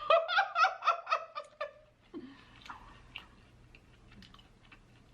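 A short burst of laughter, quick pitched pulses lasting under two seconds. It is followed by faint, scattered wet mouth clicks of chewing food.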